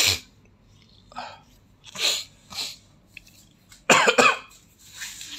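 A person coughing a few times: short breathy coughs about two seconds in, and a louder, throatier one about four seconds in.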